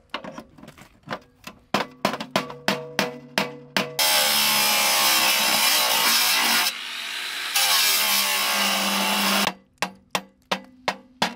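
Rapid hammer blows on a pry bar wedged into a steel safe's door seam, each strike ringing. Then an angle grinder cuts the safe's steel door plate for about five seconds, easing off briefly partway through, and a few more hammer blows strike the steel plate near the end.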